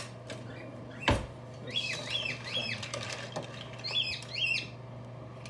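A bird chirping in short rising-and-falling calls, in runs of about three, twice. A single knock about a second in, over a steady low hum.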